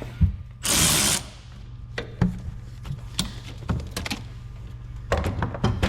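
Socket tool and metal parts clicking and clinking while the brake master cylinder mounting nuts are worked loose, with a short loud noisy burst about a second in and a quick run of clicks near the end.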